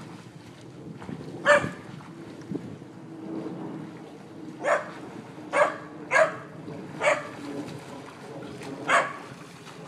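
Young Norwegian Elkhound puppy barking: six short, sharp barks spread out with gaps between them. The first, about a second and a half in, is the loudest.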